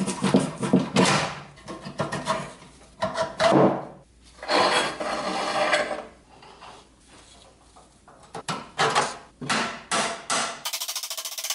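Rusty pressed-steel toy truck parts clanking and scraping on a wooden workbench as they are handled and taken apart, followed by a run of sharp hammer taps on the steel frame near the axle in the last few seconds.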